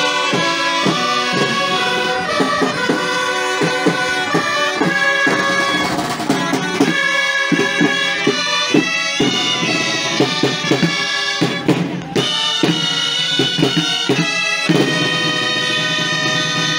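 A street band of reedy traditional woodwinds with a drum playing a traditional tune, with a brief break in the melody about twelve seconds in.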